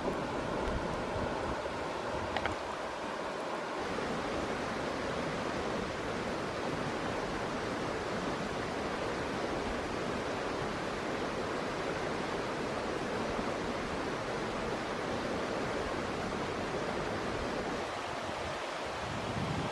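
Steady rushing outdoor background noise with no clear single source, and a faint click about two seconds in.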